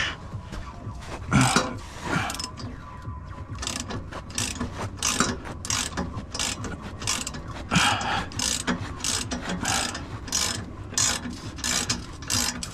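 Socket ratchet wrench clicking as it turns a fastener on a car's exhaust, in irregular runs of short clicks with a few louder knocks between them.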